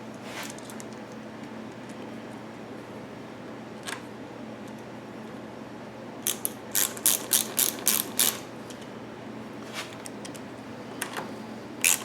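Ratchet clicking as screws are tightened on the engine's valve cover: a few single clicks, then a quick run of about eight clicks, roughly four a second, about two seconds past the middle.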